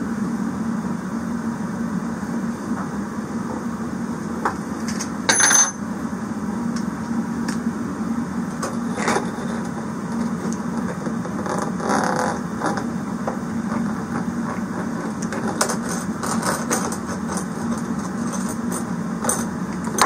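Small metal parts and tools being handled during hand assembly: scattered clicks and knocks, with one short, loud metallic clink about five and a half seconds in. A steady low hum runs underneath throughout.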